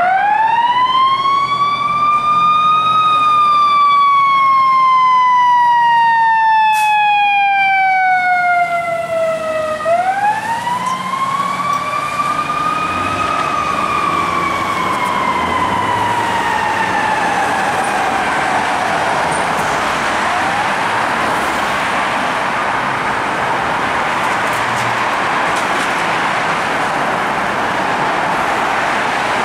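Fire truck siren winding up to a high wail and slowly winding down, twice, the second fall fading out into a steady rush of engine and traffic noise as the truck drives off.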